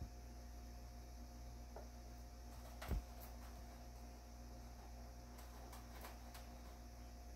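A kitten scratching and digging in cat litter in a litter box, faint and intermittent, over a steady low hum. One sharper click about three seconds in.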